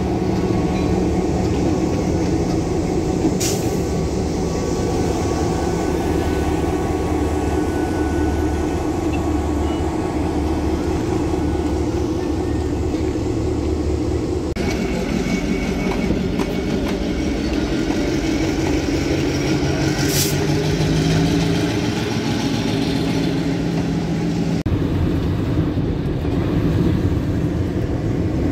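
Illinois Central 8733 diesel-electric locomotive's engine running with a steady low rumble. About two-thirds through, its note rises for a few seconds as the engine throttles up. Near the end the sound changes abruptly to a different, steadier rumble.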